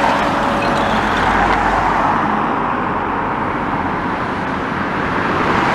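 Road traffic: cars passing close by on a busy road, steady tyre and engine noise, loudest in the first couple of seconds.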